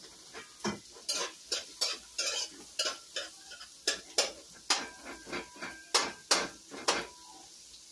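A utensil scraping and knocking irregularly against a metal pan as chopped onion is stirred, with a light sizzle of the onion frying in hot oil.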